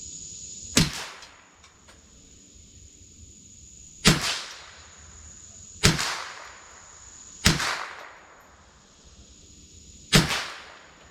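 Five shots from a Marlin Model 60 .22 rifle fired one after another at uneven intervals, each a sharp crack with a short dying tail.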